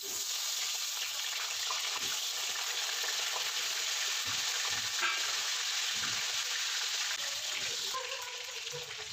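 Potato chunks frying in hot oil in a wok: a steady, dense sizzle with small crackles and pops.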